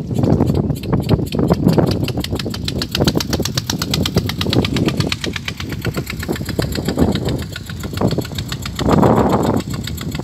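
Small engine driving a water pump, running steadily with a fast, even chugging.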